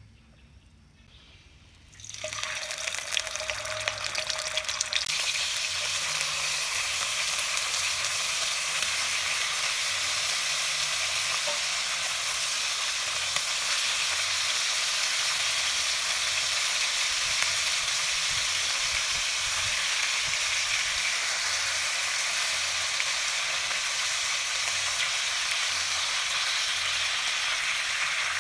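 Raw chicken drumsticks frying in hot oil in a wok. The sizzle starts suddenly about two seconds in, with a few sharp clicks as it begins, then holds steady.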